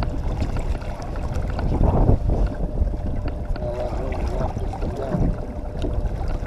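A boat's motor running steadily at trolling speed, with wind buffeting the microphone over the low drone.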